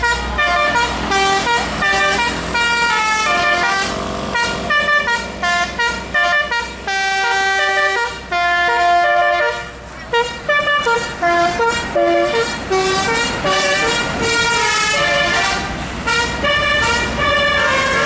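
A tour bus's telolet musical air horn playing a fast melody of clear, changing notes, with a short break about ten seconds in. The bus engine's low rumble sits under it at the start.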